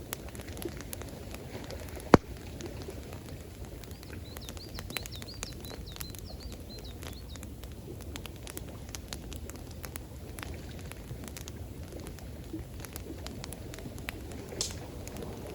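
Campfire crackling with frequent small pops and one loud pop about two seconds in, over a steady rush of water. A bird gives a quick run of high chirps in the middle.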